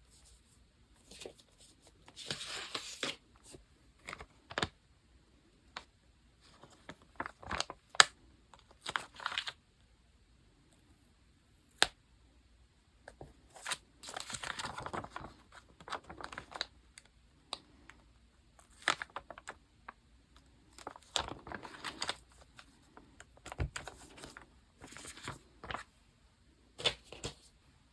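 Paper and stickers being handled while a diary is decorated: short bursts of rustling and tearing, scattered with sharp single taps and clicks.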